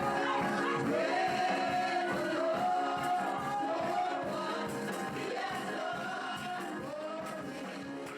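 Worship music with singing over sustained held chords, slowly getting quieter.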